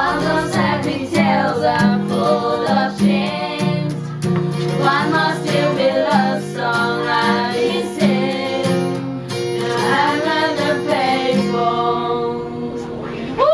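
A singer's voice carrying a melody over acoustic guitar accompaniment, with no clear words.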